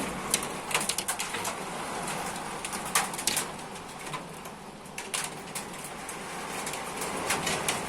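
Heavy hail and rain pelting down as a steady hiss, with many sharp, irregular clicks of hailstones striking hard surfaces.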